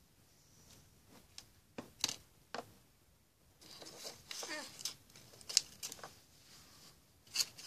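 Light taps and clicks of plastic pony figures being handled and set down on a tabletop, with a stretch of soft paper rustling in the middle from a small gift-wrapped present.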